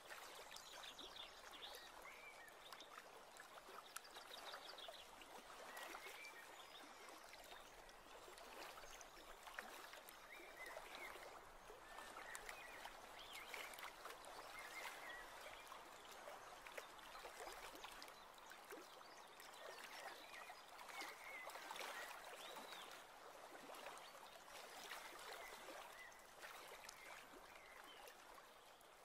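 Near silence: faint outdoor ambience, a soft even hiss with faint scattered chirps.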